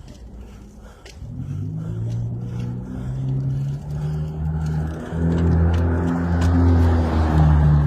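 A motor vehicle approaching: a low engine hum with tyre noise, growing steadily louder.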